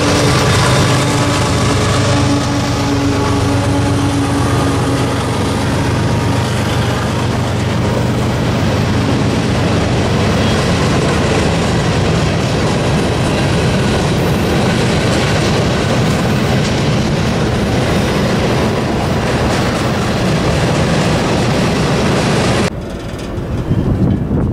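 Freight train passing close by: a CSX ES44AH diesel locomotive running as a mid-train distributed power unit goes past with its engine hum fading over the first few seconds, then covered hopper cars roll by with steady wheel-and-rail noise and some clickety-clack. Near the end the sound drops abruptly to wind on the microphone.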